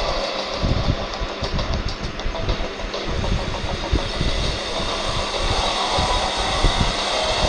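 SUV driving over a rough dirt track: engine running under a dense, uneven rumbling noise, with a run of light clicks between about one and three seconds in.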